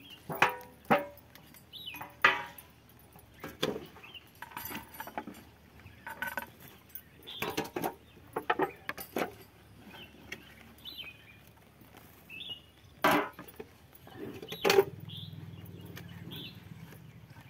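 A steel plate knocking and scraping against a concrete feed trough as cattle feed is stirred, in irregular clinks and knocks, some with a short metallic ring. A steady low hum starts about three seconds before the end.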